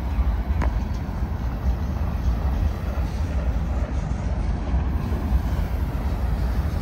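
Freight train cars rolling past, a steady rumble of steel wheels on the rails, with a single sharp click about half a second in.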